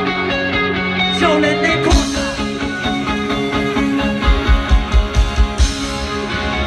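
Live rock band playing loud through a large stage sound system, with guitar. About halfway through comes a run of six heavy low hits.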